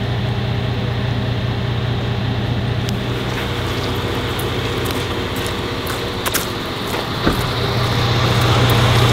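A steady low mechanical hum, like an idling engine or machinery running, with a few faint clicks over it.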